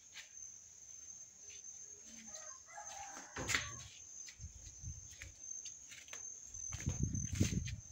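Walking and camera-handling noise with scattered clicks, a sharp knock about three and a half seconds in, and low rustling thumps near the end. A faint animal call comes a couple of seconds in, over a steady high-pitched whine.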